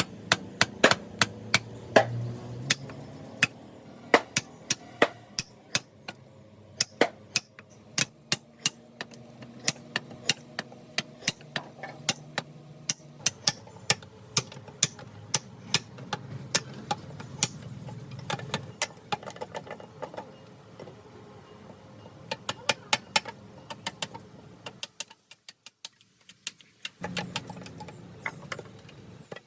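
A hand tool striking wood over and over: sharp blows at about two a second, unevenly spaced, over a steady low hum. The sound drops out for about two seconds near the end.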